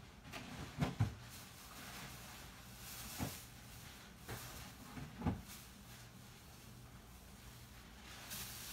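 A few dull knocks in a kitchen, a pair about a second in and single ones at about three and five seconds, over a low steady hum.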